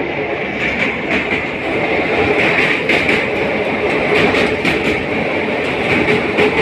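Express passenger train running at speed, heard from an open coach door: a steady wheel-on-rail rumble with a faint steady whine and irregular clicks of the wheels over the track.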